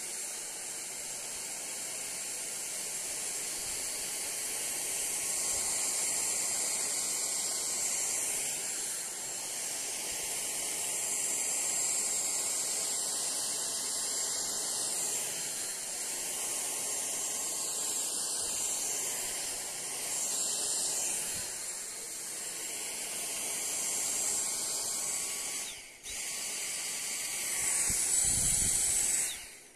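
Dyson DC59 Motorhead cordless stick vacuum running: a high motor whine over a steady rush of suction as the motorised floor head picks up debris from a rug. It stops for a moment about four seconds before the end, runs again, then cuts off near the end.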